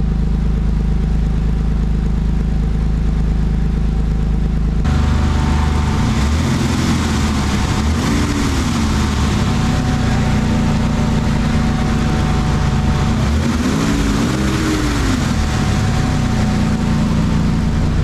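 Nissan 300ZX's VG30DE V6 engine running in a steady idle. About five seconds in the sound turns suddenly brighter and noisier, and its pitch rises and falls twice, around eight and fourteen seconds in.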